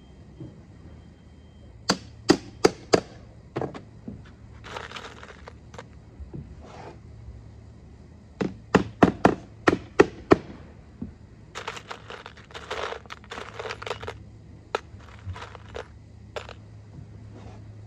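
Hand tool striking hard in quick runs of blows, with stretches of rasping scraping between them, during hand work on lead capping.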